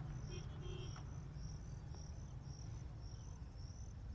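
Insects chirping in a steady, high-pitched rhythm, about two to three chirps a second, over a constant low rumble.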